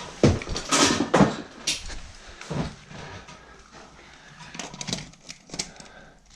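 Tools and small parts being handled: several sharp knocks and clatters in the first two and a half seconds, then lighter small clicks near the end.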